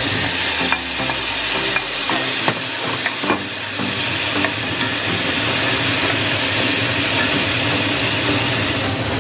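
Shrimp sizzling in hot butter in a cast-iron skillet as they go in and are stirred with a wooden spatula. Several sharp knocks and scrapes against the pan come in the first few seconds, then a steady sizzle.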